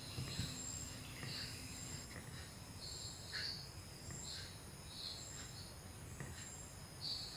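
Faint insect chirping, like crickets: a steady high-pitched drone with short chirps every half second to a second.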